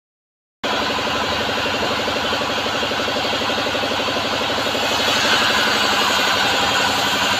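Homemade bandsaw sawmill running, its motor pulsing at a fast even rhythm under a steady hiss. It starts suddenly just under a second in and grows a little louder about five seconds in.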